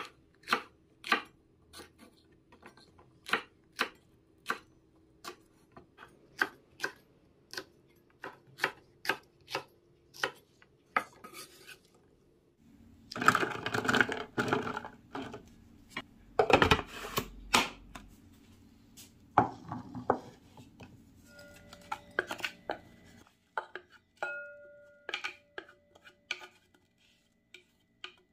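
A chef's knife slicing green peppers on a wooden cutting board, a steady run of knocks one to two a second. Then an electric mini chopper minces the pepper pieces in two pulses of a few seconds each. Near the end come scattered light taps and scrapes.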